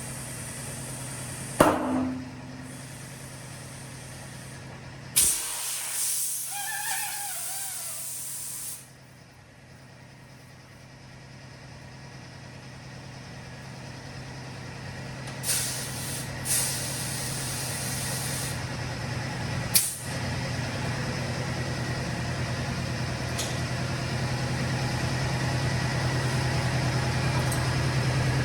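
Tire-changing work: compressed air hisses in several bursts, with a few sharp metallic knocks and a steady low hum underneath. The hiss grows slowly louder over the second half.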